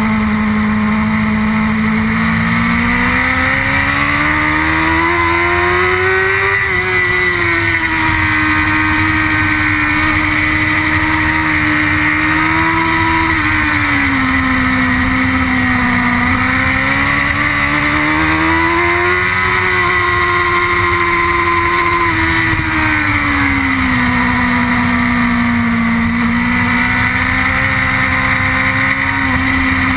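BMW S1000RR inline-four superbike engine running hard at racing revs, heard on board. Its pitch climbs over the first six seconds, then falls and rises again twice as the bike is ridden through corners and straights.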